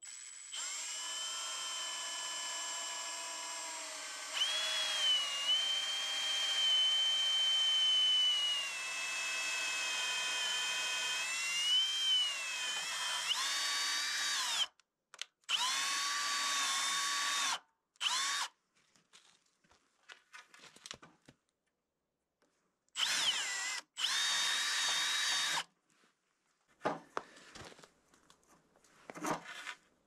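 Cordless drill boring holes through wooden support boards. A long motor whine lasts about fifteen seconds, its pitch dipping and rising as the bit loads, then breaks into three or four shorter runs of a second or two each. Faint knocks of handling come near the end.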